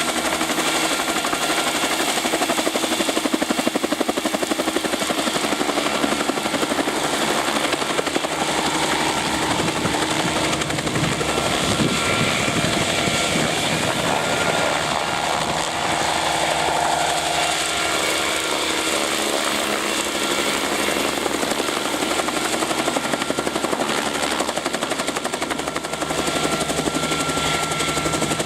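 Bell 47 helicopter in flight: its two-blade rotor chopping rapidly and evenly over the steady run of its piston engine, the sound growing fuller in the low end through the middle stretch.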